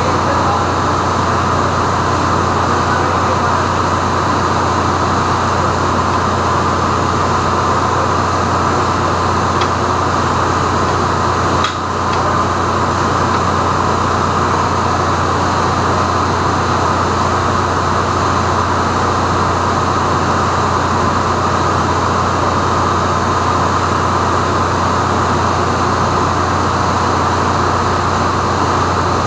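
Steady, loud drone of running engine-room machinery, a constant low hum under an even hiss.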